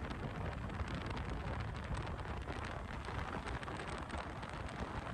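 Steady rush of wind buffeting the microphone over the road noise of a moving Honda ADV motorcycle, with a low rumble underneath.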